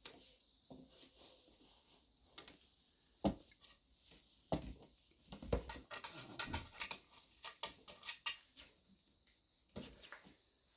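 Cat playing with a catnip toy: scattered soft knocks and rustling, with two sharper knocks about three and four and a half seconds in and a busy run of quick clicks and rustles in the middle.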